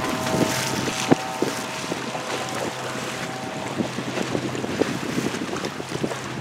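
Boat engine running steadily under wind buffeting the microphone, with water slapping and splashing against the hull in sharp knocks. A steady high tone sounds over it and stops about four seconds in.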